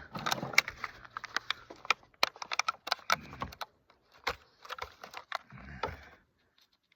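Irregular run of sharp clicks and light taps, dense for the first few seconds and then thinning out, as hands press JB Weld SteelStik epoxy putty flat into a hole in a cylinder head.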